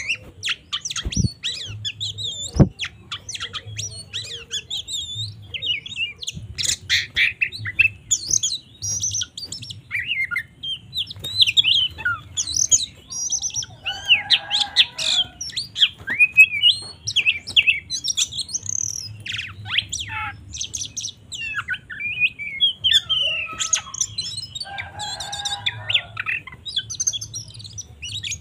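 Oriental magpie-robin singing a fast, varied song of high chirps, whistles and trills, the agitated 'fighting' song of a bird in full voice. Harsh rasping calls break in twice, about halfway through and near the end.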